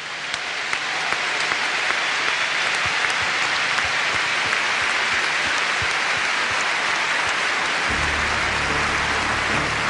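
Large stadium crowd applauding in a steady, sustained wave that swells over the first second. Low music comes in underneath about eight seconds in.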